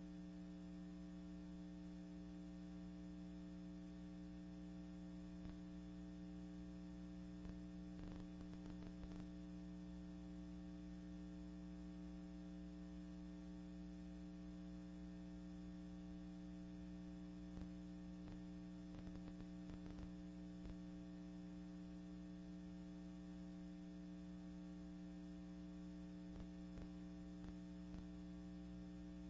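Steady electrical mains hum with a few faint crackles now and then, and no other sound.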